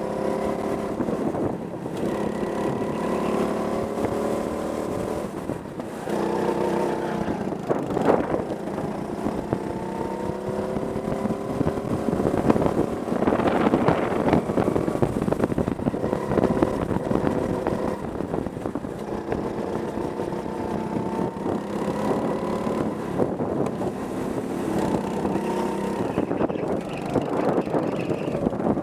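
Go-kart engine running at speed on track, its pitch climbing repeatedly as the kart accelerates and falling back as the driver lifts off for corners.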